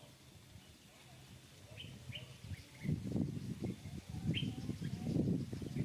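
A few short, high chirps that sweep down in pitch. From about halfway in there is a louder, irregular low crackling noise.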